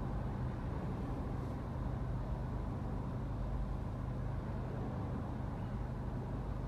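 Steady low rumble of a stopped car's engine idling, with other traffic going by.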